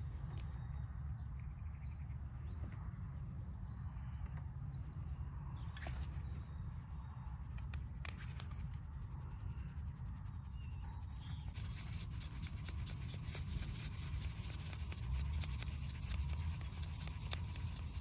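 Flour being sifted through a plastic sieve: a soft, scratchy rustle of fine ticks and taps, growing denser in the second half, over a steady low rumble.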